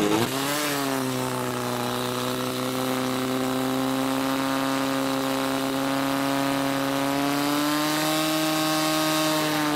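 Portable fire pump engine running hard at high revs while it pumps water through the attack hoses. Its pitch dips and recovers right at the start as the pump takes load, then holds steady and creeps slightly higher.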